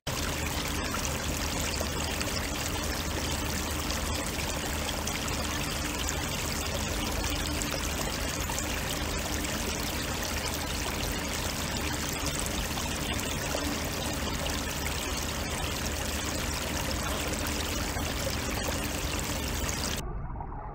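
Steady rush of running water, like a stream, cutting off suddenly near the end.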